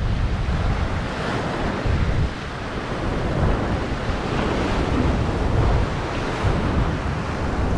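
Ocean surf washing and breaking against a rocky shoreline, with wind buffeting the microphone in a steady low rumble.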